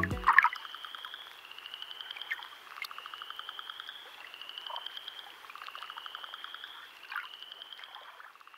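Frogs calling: a run of pulsed trills, each a second or two long, repeating over and over, with a thin higher note coming in alongside each one.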